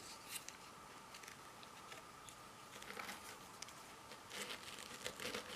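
Faint handling noise: light clicks and rustles as steel lock picks are picked up and put down, a few scattered taps, most of them in the second half.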